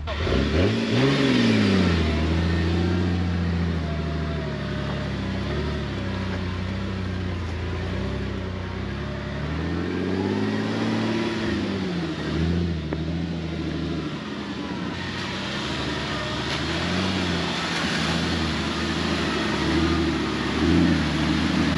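Off-road vehicle's engine working up a trail climb. It revs up hard about a second in and again about ten seconds in, falling back to a steady labouring note between the surges.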